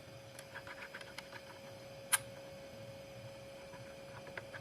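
Faint clicks and light scraping of a key blank being fitted into the clamp of a CNC key cutting machine, with one sharper click about two seconds in, over a steady faint hum.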